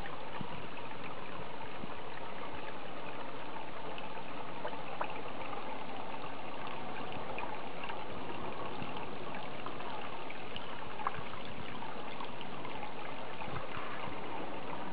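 Steady running water in a garden pond, an even trickling flow with a few faint brief ticks.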